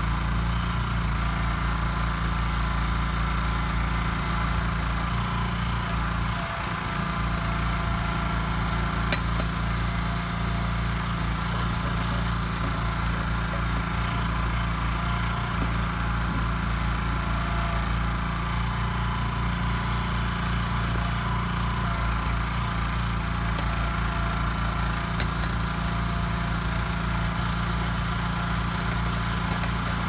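Engine of a Kellfri ATV backhoe running steadily to power its hydraulics while the boom and bucket dig.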